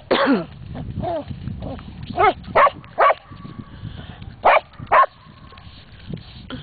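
Dog barking in short, separate barks, about six in all, spread over the first five seconds.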